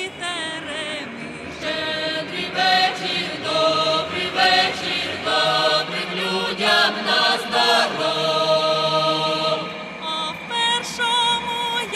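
Voices singing a Ukrainian folk carol (shchedrivka) in a choral, chant-like style, with held notes that waver in vibrato.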